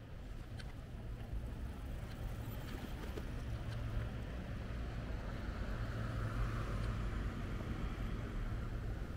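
City street traffic noise: a steady low rumble with a vehicle passing, its sound swelling about six seconds in and fading again.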